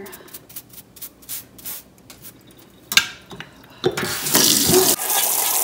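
A small brush scrubbing a stainless steel mesh air fryer basket in quick strokes. About three seconds in, the tap comes on and water splashes steadily over the basket into a stainless steel sink.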